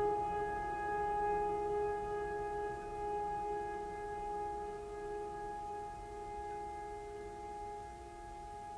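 Background music: a sustained, chord-like drone held steady and slowly fading.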